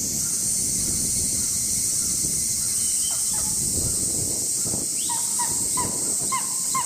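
Steller's sea eagle calling: a few faint notes about three seconds in, then a run of about six short, clipped notes, roughly three a second, in the last two seconds. A steady high-pitched hiss runs beneath.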